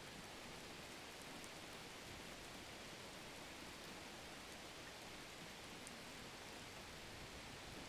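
Faint steady hiss with no distinct events.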